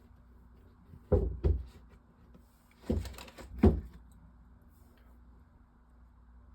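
A few soft clunks and knocks, in two pairs, as cans of pop are put into a refrigerator, over a faint steady hum.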